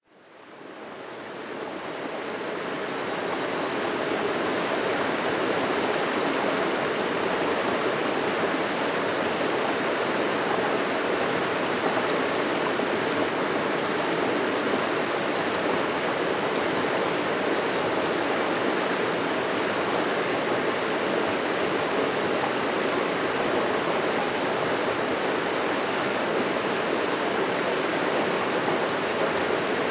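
Rocky river rapids: a steady rush of water running over boulders, fading in over the first few seconds and then holding level.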